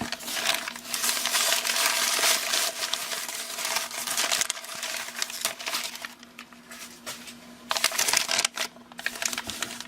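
Plastic packaging crinkling and rustling as it is handled, in a long spell over the first few seconds and a shorter one near the end.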